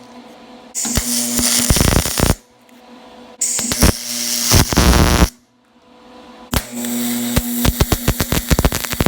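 Lincoln MIG welder's arc crackling and hissing in three bursts of about two seconds each, with a steady welder hum under them: tack welds on aluminum using aluminum wire and straight argon through the standard MIG gun. The heat is at the steel settings, which the welder suspects is too low to grab the block.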